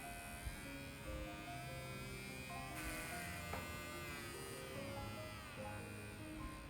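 A small electric model-train motor, the TOMIX M-9, running with a buzzing whine that drifts up and down in pitch, over background music.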